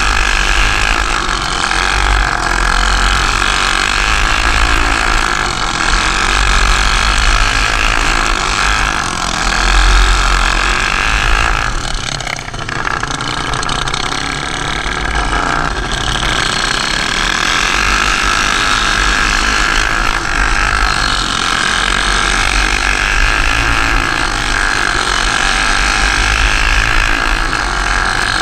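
Racing kart engine running hard at high revs, with a low rumble of wind on the onboard microphone. The engine note dips briefly about twelve seconds in, then comes back up.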